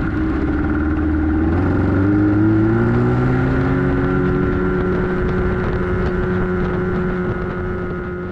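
Outboard motor on an aluminium boat accelerating, its pitch climbing over the first three seconds or so, then running steadily at cruising speed.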